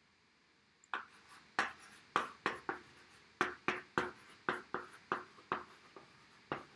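Chalk writing on a chalkboard: a string of sharp taps and short scratchy strokes, a few a second, starting about a second in.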